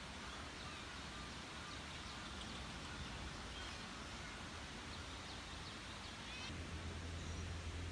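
Quiet outdoor background noise with a few faint, short high calls from an animal scattered through it. A steady low hum comes in about six and a half seconds in.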